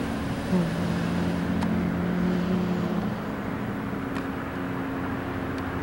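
Road traffic: cars and a pickup truck passing close, with tyre and engine noise. A low steady hum comes in about half a second in and fades out around three seconds.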